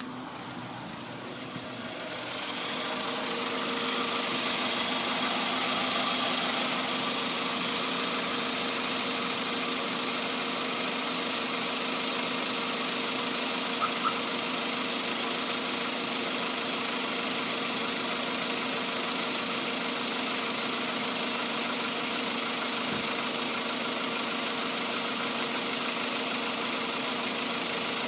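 Volkswagen Polo Sedan's CFNA 1.6-litre four-cylinder petrol engine running with a knock, the engine fault the owner is recording. It grows louder over the first few seconds, then runs steadily.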